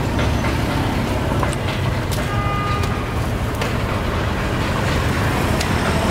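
Busy street ambience with a steady rumble of traffic and a few short clicks. A brief high tone sounds about two seconds in.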